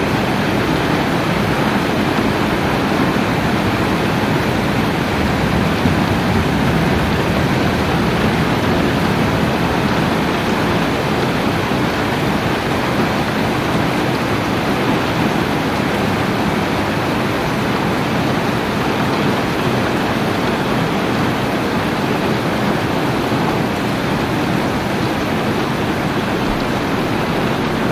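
Steady rain falling, a dense, even hiss that holds at one level without breaks.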